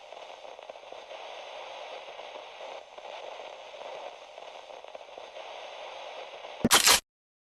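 Radio static: a steady, thin hiss with light crackle, like an untuned radio. About 6.7 s in it gives way to a sudden loud, short burst, then cuts to silence.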